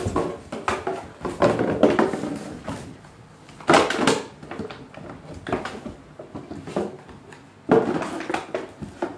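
Two Rottweiler puppies play-fighting: scuffling and scrabbling on newspaper and a wooden floor, with knocks and rustling in irregular loud bursts.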